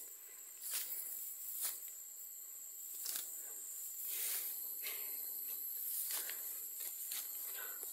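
Footsteps rustling and swishing through tall grass, a brushing step about every second, over a steady high-pitched drone of insects.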